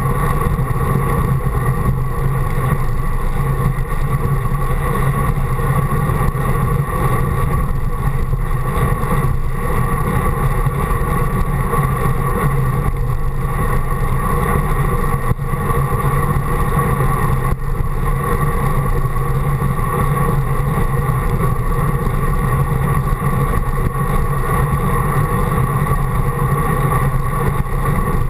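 Steady rushing wind and road noise of a bicycle riding on asphalt, picked up by a handlebar-mounted GoPro, with a constant low drone from vibration through the mount.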